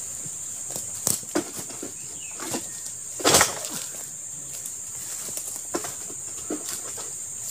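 Pole-mounted harvesting sickle (egrek) striking and dragging against an oil palm's frond bases: a few short, sharp scraping knocks, the loudest about three seconds in. A steady high insect drone runs underneath.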